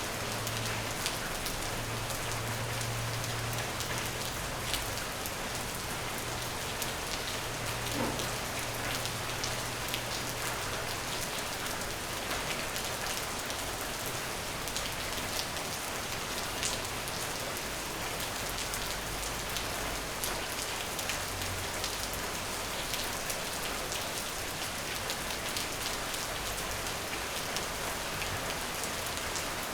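Steady rain falling, with many small drops ticking on a surface.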